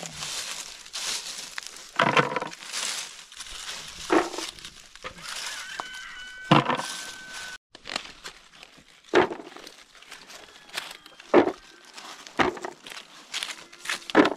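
Dry oak leaves crackling and rustling as acorns are picked out of them by hand, with irregular sharp knocks as acorns are dropped into plastic buckets.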